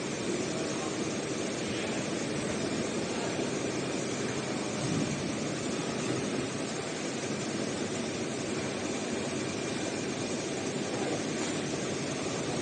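Roll-to-roll heating-wire sewing machine running steadily, a continuous mechanical drone with no separate strokes heard.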